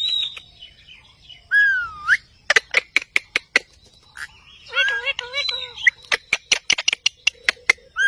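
Indian ringneck parakeets vocalising: a whistled call that glides down and back up about two seconds in, a short pitched chatter around the middle, and two runs of quick, sharp clicks.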